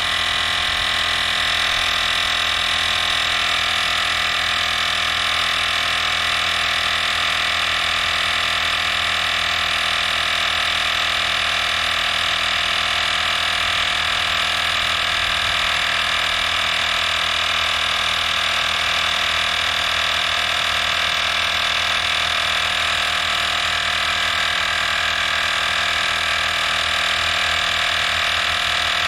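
EAFC cordless battery-powered tire inflator running steadily, its small piston compressor pumping a trailer tire up toward the 55.5 psi cut-off set on it. It makes a constant high-pitched motor whine.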